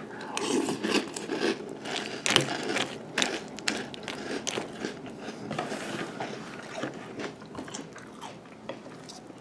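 A spoon stirring and scooping cereal puffs in milk in a bowl, giving a run of irregular clicks and crunchy crackles.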